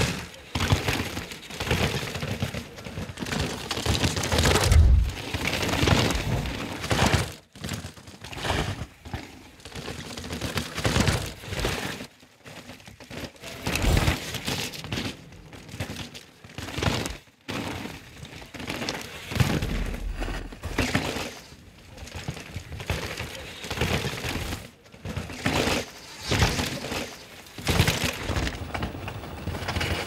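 Full-suspension mountain bike ridden fast on a forest dirt trail: tyres crunching and skidding over dirt, stones and leaf litter, broken by sharp cracks and knocks over bumps. The noise swells and fades again and again as the bike passes.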